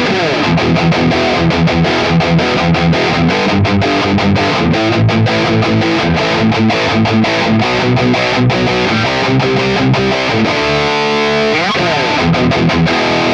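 Cort CR 250 electric guitar played through distortion: fast picked riffs and chords. It slides down in pitch right at the start, then slides up and back down about three-quarters of the way through.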